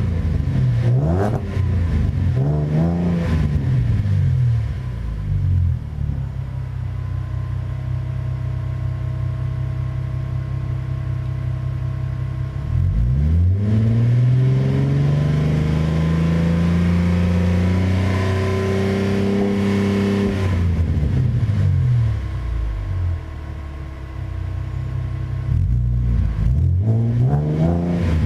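Ford Mustang's 3.7-litre Cyclone V6 idling and being revved through a new SVE straight-through stainless axle-back exhaust. A few quick throttle blips at the start, then a steady idle. A long rev held for several seconds in the middle drops back to idle, and more quick blips come near the end.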